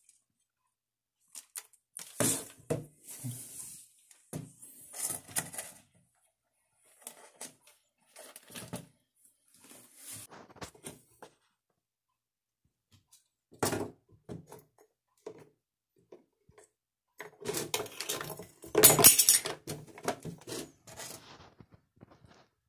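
Handling noises: a clear plastic container, its snap lid and the twigs inside being moved and rummaged by hand, in irregular rustles, scrapes and knocks with short pauses between them, loudest and busiest a few seconds before the end.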